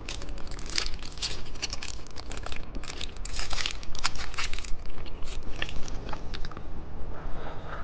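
Plastic candy wrapper crinkling and tearing as it is handled and opened, with many irregular crackles.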